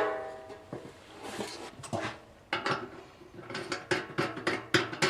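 Metal parts of a new sink drain clinking against the sink as it is set into the drain hole: a ringing metal tone fades away over the first second, then a quick run of sharp clicks and knocks from about halfway through.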